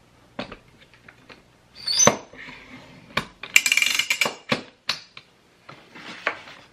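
Clicks and metallic clattering from the Nuna Pipa infant car seat base's stability leg being extended and adjusted by hand: scattered clicks, a sharp click about two seconds in, and a longer rattle midway.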